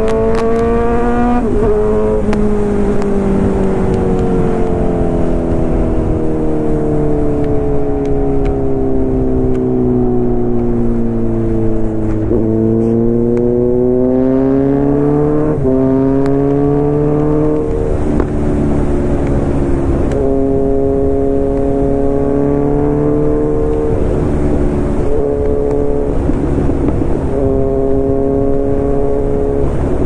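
Kawasaki Z900's inline-four engine through an Arrow full-system exhaust at speed, with low road and wind noise underneath. The pitch drops sharply as a gear is changed up about a second and a half in, falls slowly for about ten seconds as the throttle eases, then climbs again with another sharp drop at a gear change about halfway, and runs fairly level through the last third.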